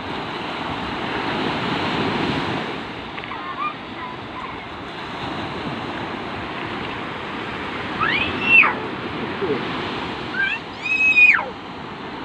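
Sea waves breaking on the shore, a steady wash of surf that swells about two seconds in, with some wind. Near the end a high voice calls out twice, each call rising and then falling.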